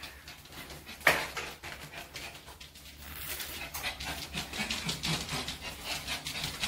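A pet dog panting in a steady run of short breaths, with a single sharp knock about a second in.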